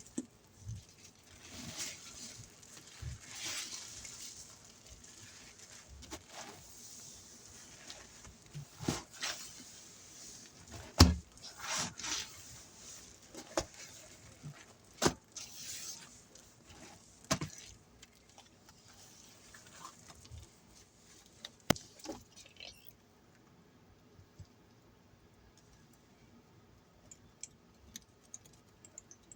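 Hand squeezes of wet sponges loaded with cleaning-powder paste and soap: irregular squelches and crackling suds with sharp clicks, dying down to faint small clicks for the last several seconds.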